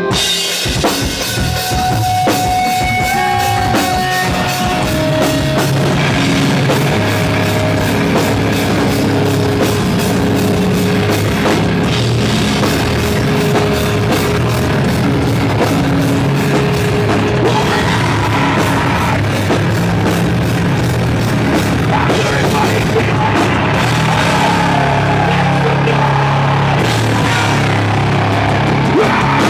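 A live metalcore band playing loud, with heavy distorted guitars, bass and a drum kit with cymbals. The full band comes in all at once right at the start, after a quieter intro.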